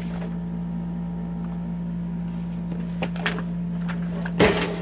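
Steady low electrical hum, with faint handling sounds about three seconds in and a louder, brief burst of handling noise near the end.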